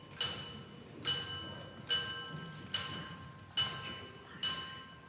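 A bell or chime struck slowly and evenly, about one ringing stroke a second, each stroke fading before the next: the clock striking eleven in a children's Halloween song.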